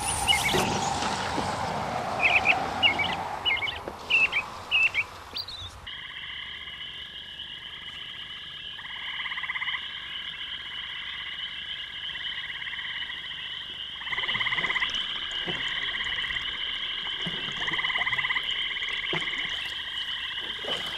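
Small birds chirping over a hiss, then, about six seconds in, a frog chorus: repeated pulsing croak-trills over a steady high chirring.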